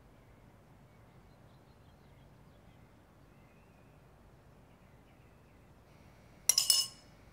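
Quiet room tone, then near the end a sudden short clatter of kitchen crockery being handled.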